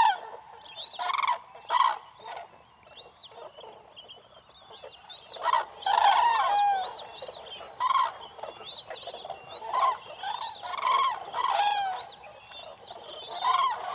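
Several wild birds calling: loud calls repeated every second or two, mixed with many short, higher chirps.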